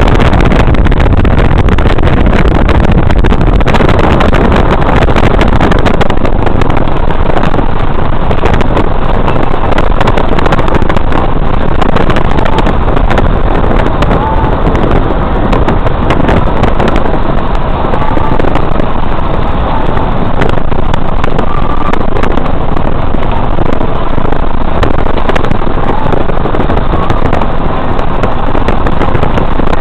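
Loud, steady rush of wind and road noise heard from inside a moving car, with a heavy low rumble.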